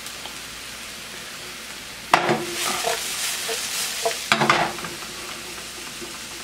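Sliced mushrooms sautéing in olive oil in a nonstick skillet, a steady sizzle. About two seconds in the pan is lifted and tossed, giving a louder rush of sizzling for about two seconds and a knock as it goes back down on the gas burner grate, after which the steady sizzle returns.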